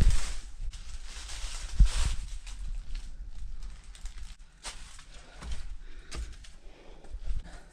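Footsteps crunching on dry leaves and rock, with irregular rustles and low thumps from the phone being handled and carried, the loudest bump about two seconds in.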